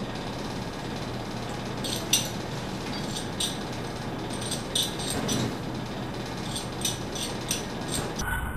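Bunsen burner being lit with a flint striker: several irregular scraping clicks as the striker is squeezed, the loudest about two seconds in, over a steady hiss.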